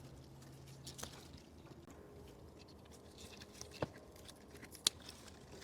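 Faint rustling and a few short sharp snaps as tomato stems are broken off and fruit is picked from the plants by hand; the two loudest snaps come near the end.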